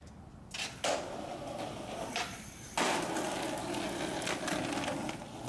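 Skateboard wheels rolling on concrete, with sharp clacks of the board: a loud one just under a second in and another near three seconds in, each followed by steady rolling.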